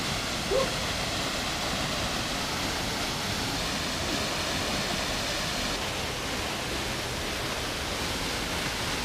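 Steady rush of a small waterfall pouring into a rocky natural pool, with a short rising blip of sound about half a second in.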